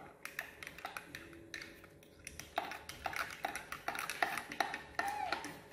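Metal spoon clinking and tapping against a drinking glass of milk, in quick irregular strokes that come more often in the second half.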